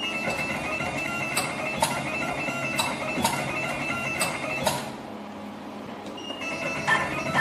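Automatic wire stripping and twisting machine running a cycle: motors whining at steady pitches, with sharp clicks every half second or so. The whine stops for about a second and a half near the end, then starts again.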